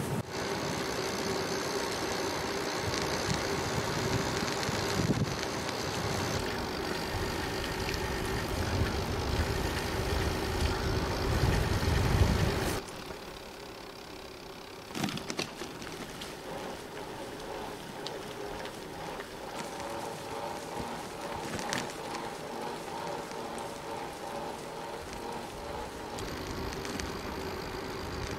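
A bicycle riding along a paved path: a steady rush of tyre and road noise with wind rumbling on the microphone. The sound drops suddenly about 13 seconds in to a quieter, steady riding noise with a faint hum.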